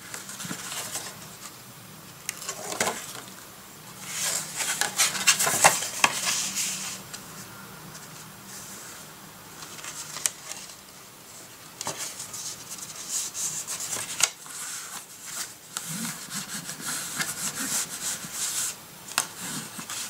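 Cardstock being rubbed and pressed down with a bone folder, a series of scraping strokes over the paper, loudest a few seconds in and again in a run of strokes in the second half, as the taped edges of the card are smoothed flat.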